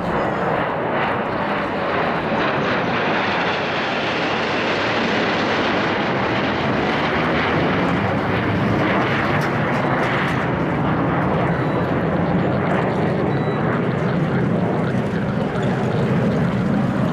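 Sukhoi Su-22M4 fighter-bombers in flight, their single Lyulka AL-21F-3 afterburning turbojets giving loud, steady jet noise as they pass overhead.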